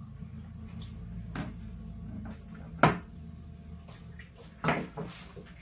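People eating at a table: three sharp clicks or taps from forks, plates and chewing, the loudest about three seconds in, over a low steady hum.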